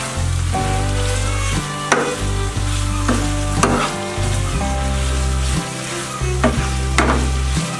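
Chicken and ginger sizzling in a non-stick pan as they are stir-fried, with a spatula scraping and knocking against the pan a few times. Background music with a stepping bass line plays underneath.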